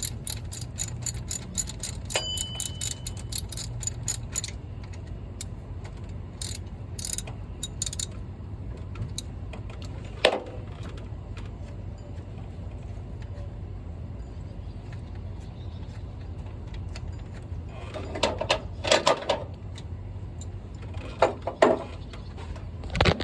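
Ratchet wrench clicking quickly and evenly for about four seconds as an alternator mounting bolt is turned out, then occasional clicks and metal knocks of tools against the engine.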